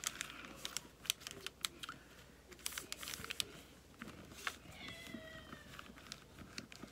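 Hands pressing and rubbing a sheet of vellum down over inked clear stamps: light paper rustle with many small ticks and taps. About five seconds in, a short falling squeak.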